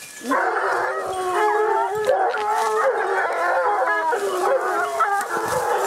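A pack of Gascon Saintongeois hounds baying together, many voices overlapping, starting suddenly a moment in: the hounds in full cry on a wild boar.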